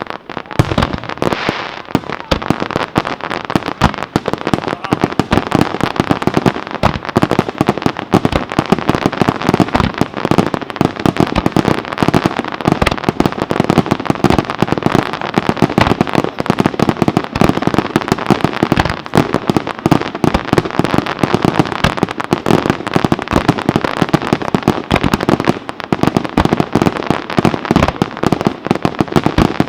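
Fireworks display: a dense, unbroken rapid-fire barrage of firecracker bangs and crackle, many reports a second with no let-up.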